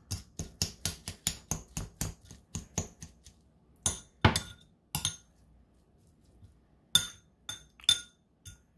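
Two metal forks clinking and scraping against a ceramic bowl as crab meat is shredded. Quick clicks about four a second for the first three seconds, then a few louder, scattered clinks, a pause of a second or two, and a handful more near the end.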